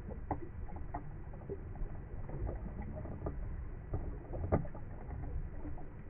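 Underwater ambience: a steady low rumble with scattered short clicks and crackles, the strongest click about four and a half seconds in.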